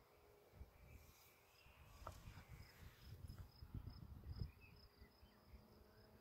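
Near silence: faint insect chirping, a thin high note repeating evenly about three times a second, with low wind rumble on the microphone.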